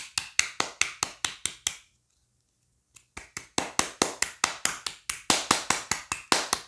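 Fingers rapidly slapping a Redmi smartphone held in the other palm, sharp smacks about five a second. The slapping stops for about a second near the middle, then starts again at the same pace.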